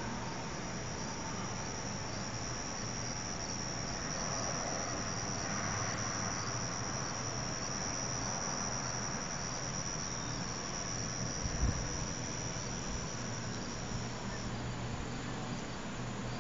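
A steady high-pitched insect trill that cuts off suddenly near the end, over a faint low hum, with a soft bump about two-thirds through.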